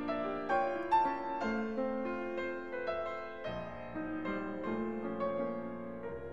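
Instrumental piano music: single notes and chords struck in turn and left to ring.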